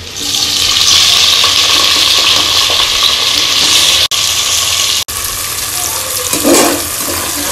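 Mixed vegetables, frozen peas among them, tipped into hot oil in an aluminium pressure cooker, setting off a loud sizzle that starts at once and eases after about four seconds.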